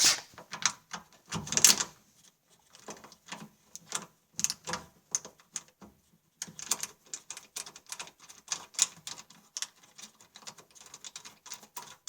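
Irregular metal clicks and scrapes of a mounting screw being turned in by hand, fastening the washing machine's motor back in place.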